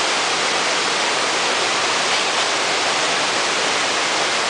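Small waterfall pouring over rocks into a mountain stream: a steady, even rush of falling water.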